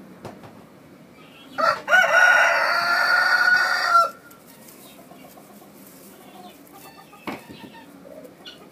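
Rooster crowing once: a loud call about two seconds long, starting a little way in with a short first note and ending abruptly.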